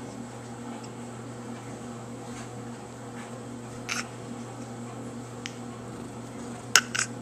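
Steady low hum of room tone, with a brief sound about four seconds in and two sharp clicks close together near the end.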